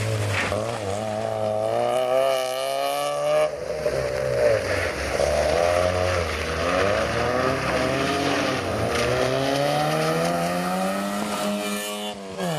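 Fiat Seicento rally car's small four-cylinder engine revving hard under acceleration. The revs climb, drop off sharply about three and a half seconds in, rise and fall through the chicane, then climb in one long pull that cuts off suddenly near the end at a gear change.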